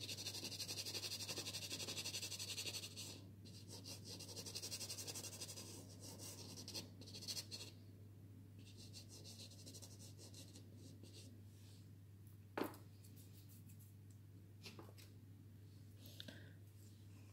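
Girault soft pastel stick scratching and rubbing across pastel card in quick short strokes, strongest for the first three seconds and then softer and sparser. A single sharp tap about twelve seconds in, over a steady low hum.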